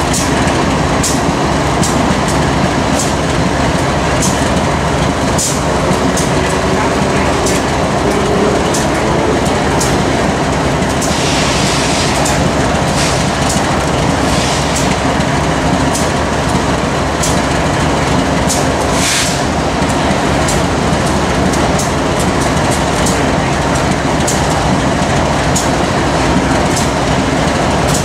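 Covered hopper cars of a freight grain train rolling past at steady speed: continuous wheel-on-rail rumble with frequent sharp clicks. Two brief hisses come through, one about eleven seconds in and one about nineteen seconds in.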